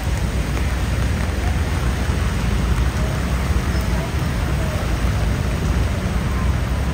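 Steady rain falling, with a continuous low rumble underneath.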